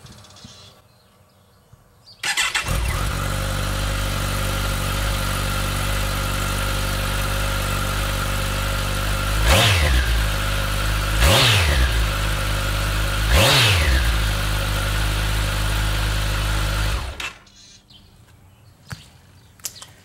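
Kawasaki ZX-14R SE's inline-four engine through its stock exhaust mufflers. It starts about two seconds in and idles steadily. It is blipped three times, the pitch shooting up and falling straight back each time, and it shuts off about three seconds before the end.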